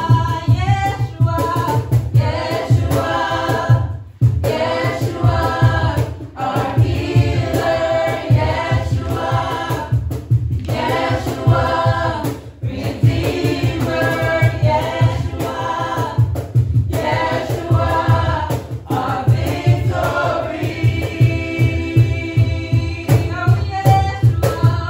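A group of voices singing a contemporary worship song over band accompaniment with a steady bass beat, with a long held note near the end.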